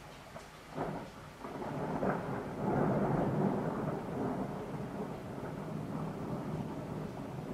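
Thunder: a sharp crack about a second in, then a long rolling rumble that swells to its loudest a couple of seconds later and eases off a little, with steady rain underneath.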